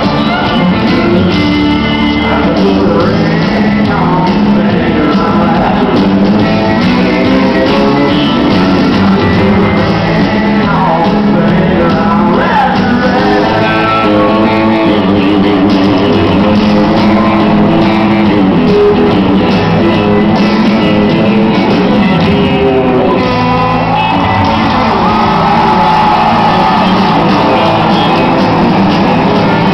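Live country band music played loud in an arena and heard from the audience: electric guitar and band with singing.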